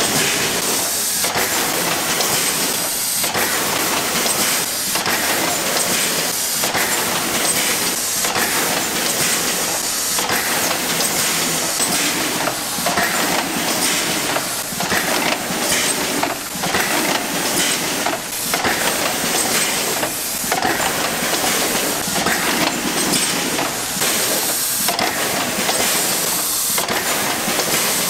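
Production-line machinery in a red ginseng extract factory running loud and steady, a continuous hiss with a clattering rattle that keeps dipping and returning.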